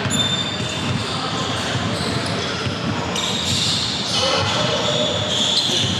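Basketball game play on a court: the ball bouncing, with short high squeaks of sneakers on the floor and players' voices.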